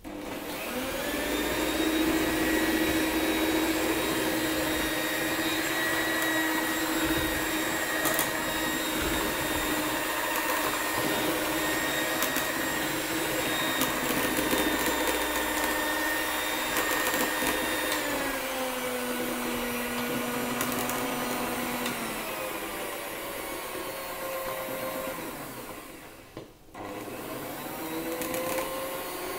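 Electric hand mixer running with its beaters in a bowl, a steady motor whine. Its pitch steps down about eighteen seconds in, and it cuts out for a moment near the end before starting again.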